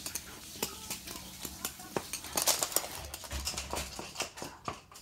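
A toy poodle's claws clicking rapidly and irregularly on a laminate floor as it scrambles about.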